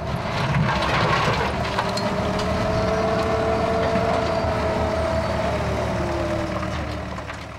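Backhoe loader's diesel engine running under load as it digs rubble, with a steady two-note whine that sags in pitch near the end and occasional knocks. The sound fades out in the last second.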